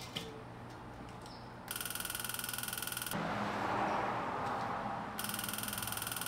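Propane hissing from an open tank valve into an unlit outdoor gas burner while gas builds up before ignition. A steady high buzz comes and goes twice over the hiss, each time for a second or two.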